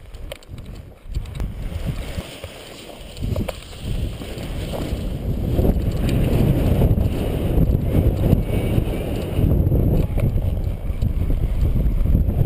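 Wind rumbling on the microphone of a paraglider pilot's camera during launch, swelling over the first several seconds and staying strong as the wing inflates overhead and lifts off. A few light knocks come early on.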